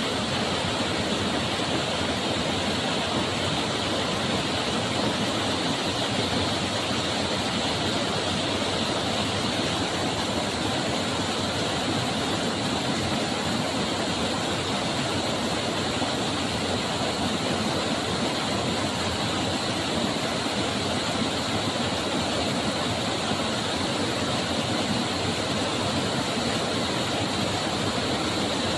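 Water rushing steadily, a continuous even roar like a waterfall or fast stream with no breaks or separate events.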